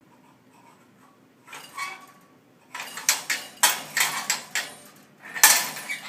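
African grey parrot banging its food bowl around in the bowl holder on its play stand: a run of irregular clanks and rattles, with a few about a second and a half in, a busy stretch in the middle and the loudest clank near the end.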